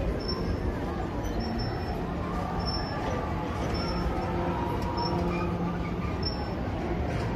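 Amusement park background noise: a steady low rumble with a low machine hum that comes and goes, and faint distant voices.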